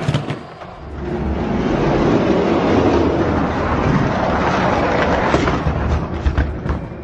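Die-cast Hot Wheels monster trucks rolling down a plastic track: a steady rumble, with a few sharp clicks near the end.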